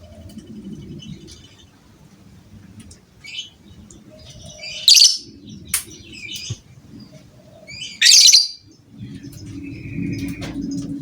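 Lovebird calling: scattered short chirps and two loud, shrill squawks about five and eight seconds in, over a low rumble.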